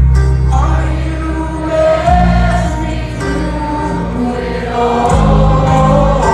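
Live rock band playing loud music with singing, heard from the crowd: heavy sustained bass and guitar chords under a sung melody, the chord changing about two seconds in and again near five seconds.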